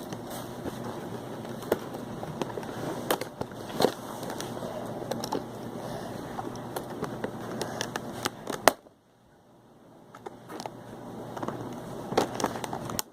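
Plastic packaging crackling, with many sharp clicks and knocks, as a boxed socket and tool set is handled and its zip ties worked off. About two thirds of the way through a loud click is followed by a sudden quiet stretch, and the crackling and clicks pick up again near the end.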